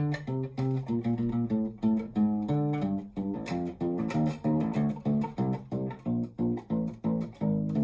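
Taylor acoustic bass guitar fingerpicked, playing a bass line over G and C that climbs and then falls, about four notes a second.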